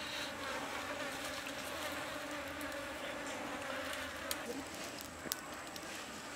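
A flying insect such as a fly or bee buzzing steadily in one even hum, with a few faint sharp ticks later on.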